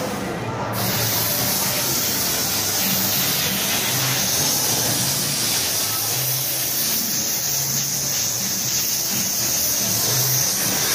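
Steam cleaner nozzle jetting high-pressure steam: a steady, loud hiss that sets in about a second in and holds without a break.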